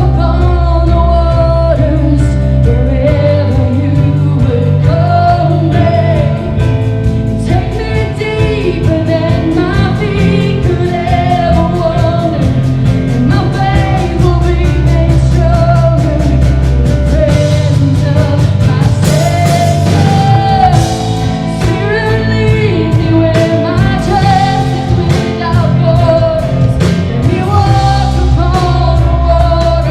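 Live church worship band playing a song with singing over sustained bass notes and a steady drum beat.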